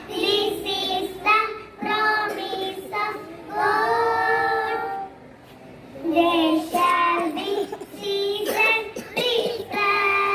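Young children singing a song together, holding long notes in phrases with short breaths between them.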